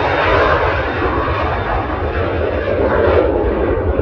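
Embraer Phenom 300 business jet's twin Pratt & Whitney Canada PW535E turbofans at takeoff power: a loud, steady jet rush over a deep rumble, its main pitch sinking slightly in the second half.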